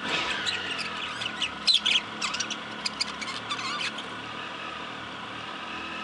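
A flock of budgerigars chattering: sharp chirps and squawks over a continuous warbling. The loud calls thin out after about four seconds, leaving the warbling.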